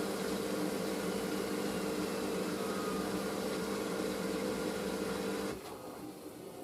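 Steady electric motor hum from a washing machine, most likely its drain pump running after the final spin, which stops about five and a half seconds in.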